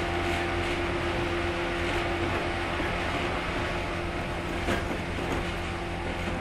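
A JR 115 series electric train running, heard from inside one of its motor cars (MoHa 115-362): a steady rumble of wheels and running gear with a steady traction-motor hum. The hum fades about a third of the way in, and there is a single sharp click about three-quarters through.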